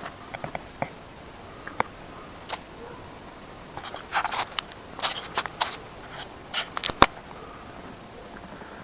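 Handling noise as a hand and camera brush against crinkly foil insulation and a vinyl boot: scattered small clicks, a run of scrapes and crinkles in the middle, and one sharp click near the end.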